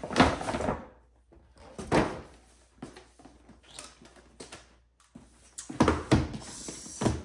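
Cardboard shoe box being unwrapped and opened by hand: gift-wrap paper rustling and the box knocking in several short bursts, loudest just after the start and again about two seconds in.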